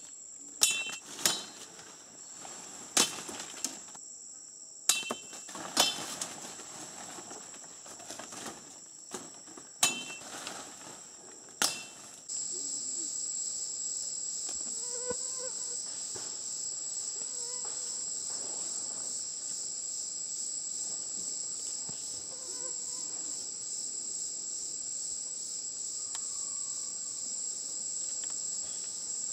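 Steady high-pitched drone of insects, louder after about twelve seconds. Over the first twelve seconds, about seven sharp cracks from plant stalks being cut.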